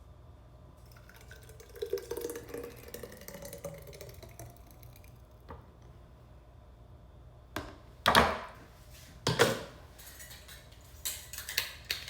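Kitchen containers and utensils being handled: soft scraping for a few seconds, then two loud knocks about eight and nine seconds in, and lighter clinks near the end.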